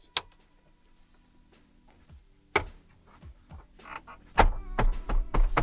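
Plastic clips of a Nissan Titan's center dash trim panel snapping into place as the panel is pressed in by hand: a sharp crack just after the start, another about two and a half seconds later, then a run of loud cracks and thumps near the end. It sounded like something broke, but the panel is seated.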